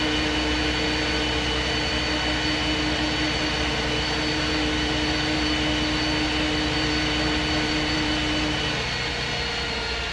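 MAN SD202 double-decker bus with its MAN D2566 MUH diesel engine and Voith Diwa 851 automatic gearbox running on the move, a low rumble with a steady whine over it. About nine seconds in the lower whine stops and the sound eases off a little.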